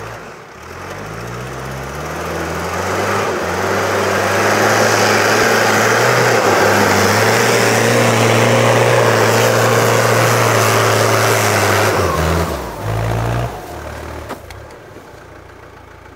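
Off-road 4x4's engine driving through deep snow. The revs build over the first few seconds and are held high, then drop off about twelve seconds in. A short burst of throttle follows before the engine settles to a low run.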